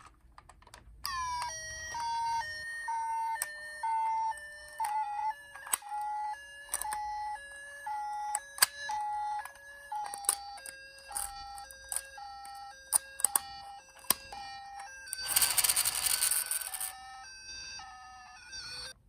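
Electronic sirens of toy ambulance and police minicars: several two-tone hi-lo sirens sounding at once and overlapping, starting about a second in with a falling glide. Sharp clicks come throughout, and a loud burst of hiss runs for about two seconds near the end.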